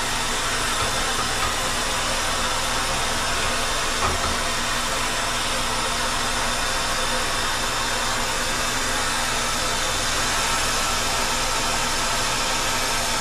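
Brazing torch flame hissing steadily as it heats a copper refrigerant-line coupling on an ice-machine compressor, melting the braze so the line can be pulled off.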